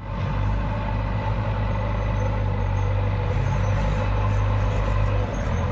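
Heavy diesel engine running steadily at a constant speed, with a brief dip in level near the end.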